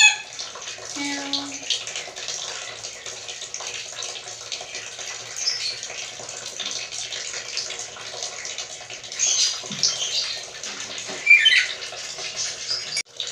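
Black-capped lory giving a few short, high squeaky calls, most clearly about nine and a half and eleven and a half seconds in, over a steady hiss.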